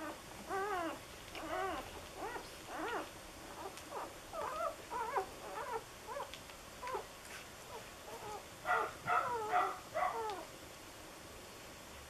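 Four-day-old Pembroke Welsh corgi puppies squeaking and whimpering as they nurse: a string of short, high cries that rise and fall, with a quicker, louder run of them about three-quarters of the way through.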